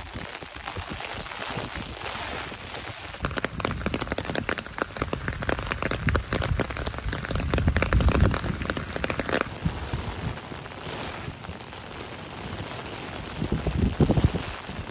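Heavy rain falling on wet pavement and grass, with a spell of close, dense drops drumming on an umbrella overhead from about three to nine seconds in. Gusts of wind rumble on the microphone, loudest about eight seconds in and near the end.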